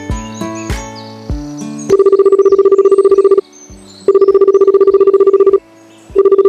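Background music with a drum beat. About two seconds in, it gives way to a loud trilling telephone ring that comes in bursts of about a second and a half with short gaps: two full rings, and a third starting near the end.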